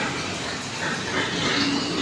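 Pigs and piglets calling: a steady jumble of overlapping animal noises.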